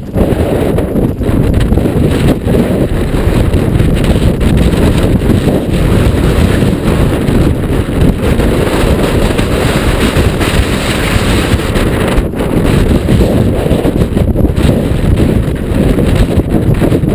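Strong wind buffeting the microphone of a camera on a moving mountain bike: a loud, steady low rumble with a few brief dips, from winds of 30-plus mph.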